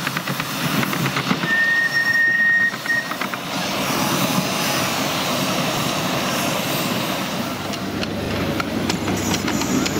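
Miniature live-steam locomotive hauling passenger cars of riders along the track, wheels rumbling and clicking over the rails, louder as it draws near toward the end. A steady high-pitched tone sounds for about a second and a half near the start.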